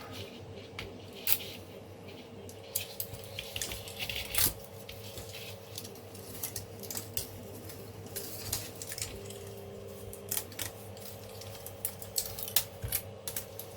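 Light clicks and taps of thin 3D-printed plastic pieces being handled and set down on a hard surface, scattered and irregular, over a steady low hum.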